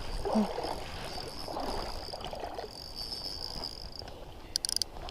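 Steady rain-and-river noise with a thin high whine held for about four seconds, then a quick cluster of sharp clicks near the end.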